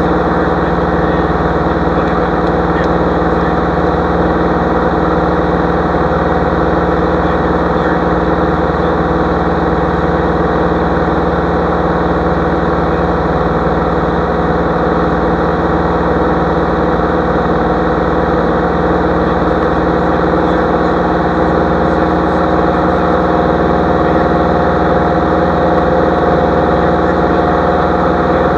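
Single-engine light aircraft in cruise: the piston engine and propeller make a steady drone, heard from inside the cabin.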